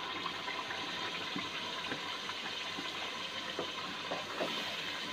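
Tomato-garlic masala cooking in an aluminium pot on a gas stove: a steady low sizzling hiss with faint small pops and scrapes as ground spinach purée is tipped in and worked through.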